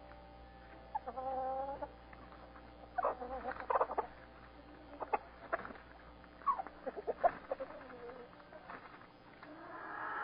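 Backyard hens clucking and calling: a held call about a second in, a flurry of calls around three to four seconds, then scattered short clucks, and a louder call rising near the end.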